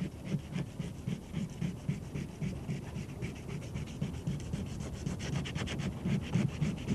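Sandpaper rubbed by hand over a boat's fibreglass gelcoat in quick, even back-and-forth strokes, scuffing the surface to key it before polyester filler is applied.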